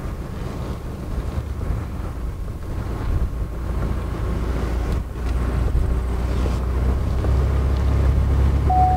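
Steady low rumble of a pickup truck driving at road speed, with wind buffeting the microphone on the open rear deck; it grows somewhat louder about halfway through.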